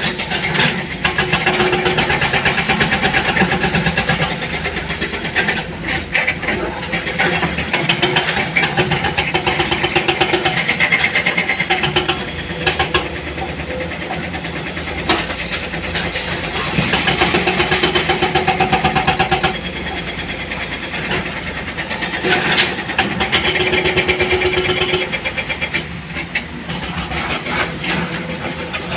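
Heavy diesel machinery at work loading rock: the engine runs steadily and rises several times into louder, rapidly pulsing stretches of a few seconds each, with a few sharp knocks.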